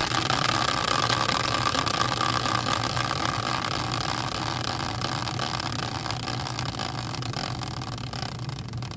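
A caster wheel on a wooden stand, used as a prize wheel, is spun hard by hand. It gives a steady whirring rumble on its axle that starts suddenly with the push and slowly fades as the wheel loses speed.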